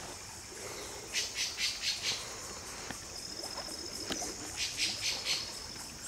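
A bird giving harsh, raspy squawking calls in two quick runs: about five notes in a row, then about four more some three seconds later. A steady high-pitched whine runs underneath, with a thin high tone joining about halfway through.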